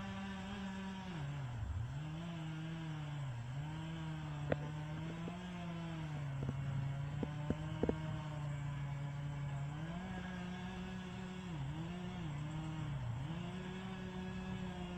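A tree crew's chainsaw running at high revs, its pitch sagging and recovering again and again as it bogs down in the wood. A few sharp knocks come about halfway through.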